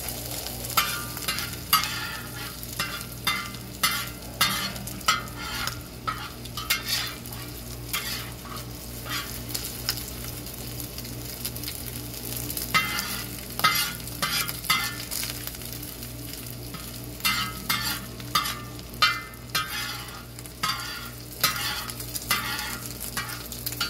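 Bacon sizzling in its rendered grease on a discada, a steel plow-disc wok over a charcoal fire, while a metal wok spatula scrapes and pushes it across the pan in quick strokes. The scraping comes in clusters, with a lull of a few seconds near the middle.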